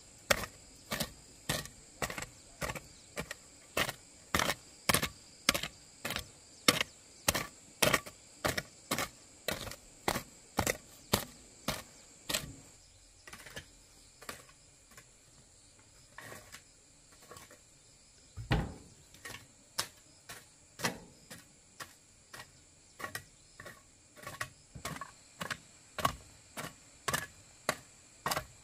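Repeated sharp knocks at about two a second, like steady chopping or hacking. They stop for about five seconds partway through, then one heavier thud comes and the knocking picks up again. A faint steady high-pitched hum runs underneath.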